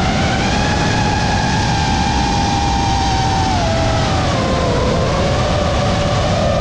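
FPV quadcopter's EMAX 2207 1700KV brushless motors and props whining in flight over a steady rush of air. The whine holds its pitch, then drops about three and a half seconds in and again a second later.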